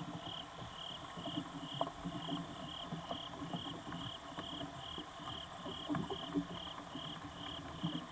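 A night insect chirping steadily and evenly, about two high-pitched chirps a second, with faint scattered ticks and rustles beneath it.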